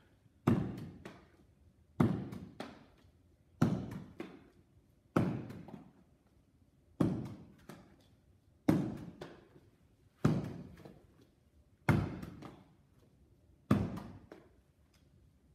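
A baseball thrown against a wall and fielded into a leather glove, over and over: a sharp knock about every one and a half seconds, each followed by a short echo and a few softer ticks.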